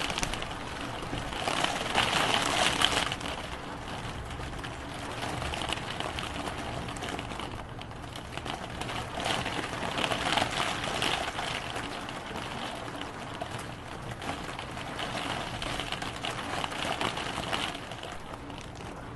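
Rain falling steadily, a dense patter of drops that swells heavier for a few seconds at a time, three times over.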